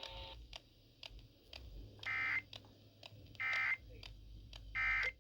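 Emergency Alert System end-of-message data tones: three short bursts of buzzy digital squawk, about a second and a half apart, heard over a radio feed with faint clicking static.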